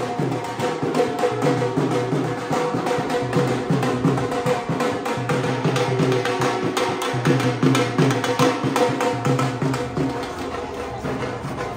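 Music with a fast, busy percussion beat over sustained melodic tones.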